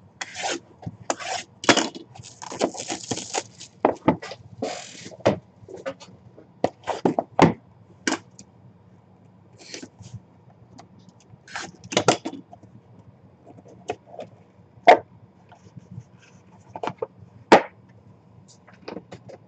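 Hands opening a cardboard hockey-puck box and handling the plastic puck case inside: scattered taps, scrapes and cardboard rustling, with brief stretches of rubbing or peeling early on. A few sharp clicks stand out in the second half.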